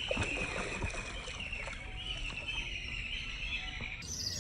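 A hooked mrigal carp flapping in shallow water at the bank, giving a few faint splashes in the first second. A steady, wavering high-pitched drone runs underneath.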